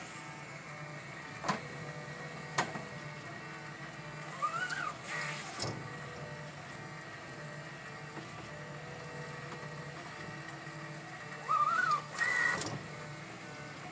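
Large-format 3D printer running with a steady hum of its motors and fans, broken by two sharp clicks early on and a short rising whine about halfway through. The loudest part, a rising whine and a harsher burst near the end, comes as the printhead is pushed by hand off its tool path.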